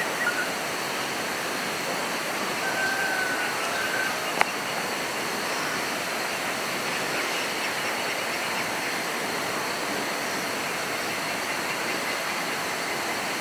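Steady rushing water noise, with a short high whistle about three seconds in and a single sharp click just after four seconds.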